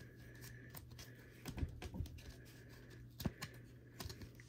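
Scattered light taps and clicks of trading cards being handled, flipped and set down on a table, a few sharper ones about halfway through and near the end, over a faint steady low hum.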